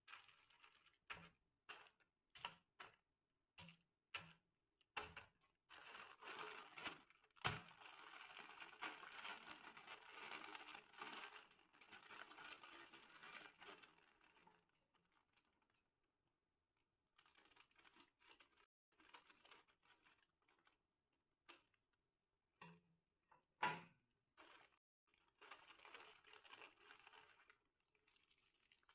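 Plastic snack packets being handled and torn open by hand: a string of light taps and clicks, then long stretches of crinkling, with one sharper snap about two-thirds of the way through.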